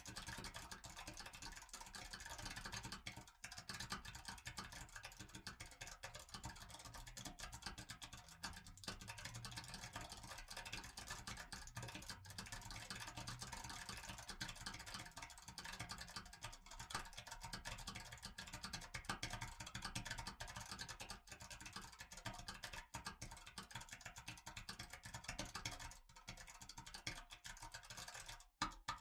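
Faint, crackly wind and road noise picked up by a microphone on a motorcycle while riding, with frequent brief dropouts.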